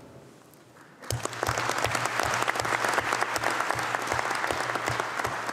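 A large seated audience applauding, the clapping starting about a second in and keeping up steadily.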